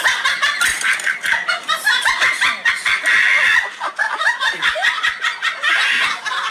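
Laughter in quick, repeated bursts.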